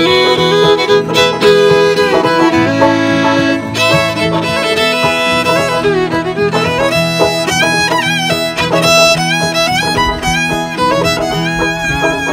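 Fiddle playing a bowed melody, with vibrato on the held notes in the second half.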